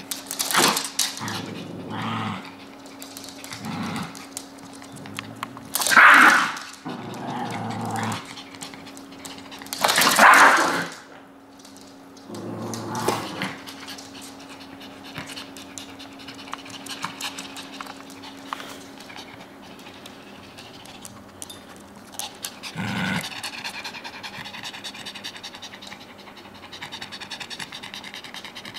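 Small dogs, a Shih Tzu and a Maltese, panting, with several short loud bursts of noise, the loudest about six and ten seconds in.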